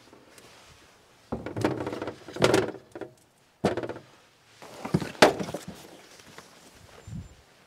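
Clattering and knocks of a folding metal camp table being opened out and set down, in several bursts, with a sharp knock about halfway.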